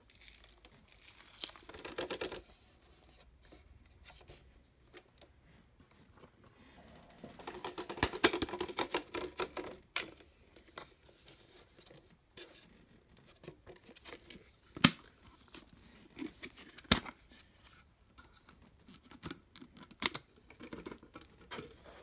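Plastic bag crinkling and plastic parts clicking as a cordless stick vacuum's dust cup and cyclone filter are handled and emptied over a lined trash bin. There are bursts of rustling about two seconds and eight seconds in, and a few sharp clicks in the second half. The vacuum motor is off.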